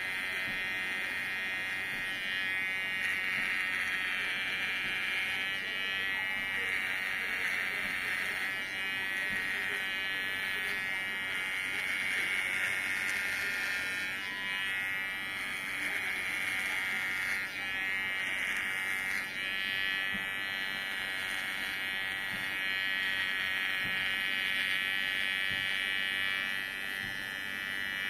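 Kemei electric hair clipper buzzing steadily as it cuts beard, getting louder and softer every few seconds as it moves.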